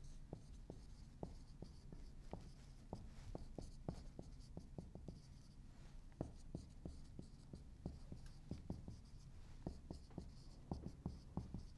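Marker writing on a whiteboard: a faint, irregular run of quick taps and scrapes as the letters are stroked out, with a short lull about halfway through.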